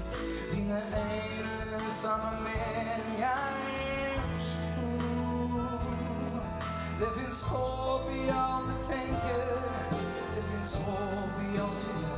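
A big band plays live: saxophones, trumpets and trombones over guitar, keyboards, bass and drums, with sustained chords and a wavering lead melody.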